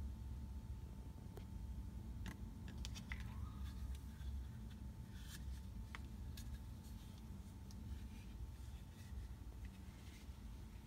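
Quiet room tone: a low rumble and a faint steady whine, with a few light clicks and taps scattered through it.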